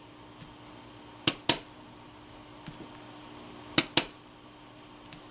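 Small wooden-handled rubber stamp being tapped down on an ink pad and onto paper: two quick sharp taps, then a pause, then two more.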